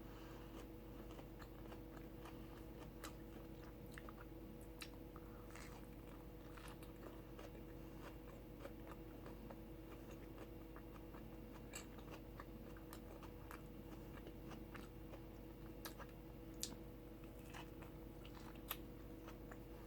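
Faint chewing and mouth sounds of someone eating a soft taco, with scattered small clicks, over a steady low hum.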